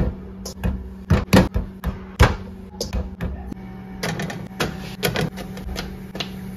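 Irregular soft slaps and taps of hands patting out gordita dough and laying the raw rounds onto a metal griddle, with a quick run of taps a little after the middle, over a low steady hum.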